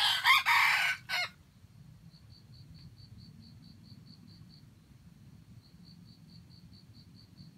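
Junglefowl rooster crowing once: a loud, short crow about a second long, ending in a brief clipped final note. A faint high pulsing, about five pulses a second, follows.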